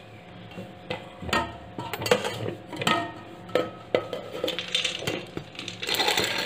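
Stainless-steel bowls and a steel mesh sieve knocking and clinking several times as they are handled with crushed peanuts in them. A steady hiss begins near the end.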